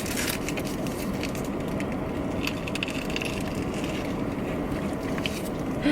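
Steady low rumble of a car interior, with scattered brief crunching and rustling from the takeout food and its packaging.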